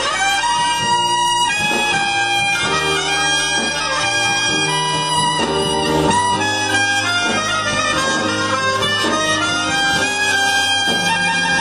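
Saxophone playing a blues-jazz melody live over backing music with a steady bass line.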